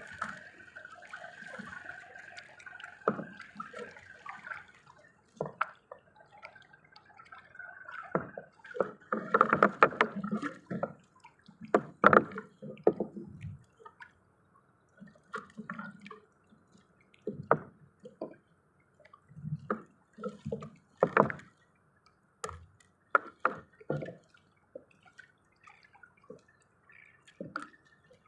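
Water splashing and dripping in irregular bursts, with scattered knocks.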